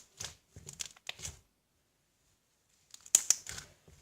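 Slime being squeezed and worked by hand, giving short crackling, popping bursts: a cluster in the first second and a half, a pause, then another from about three seconds in.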